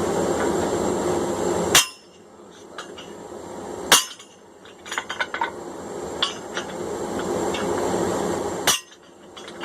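Hammer blows on a guillotine fuller, driving fuller grooves into the cheeks of a hot steel hammer head: three heavy metal strikes, with lighter clinks between them. A steady rushing noise runs under it, stops at the first strike and comes back before the last one.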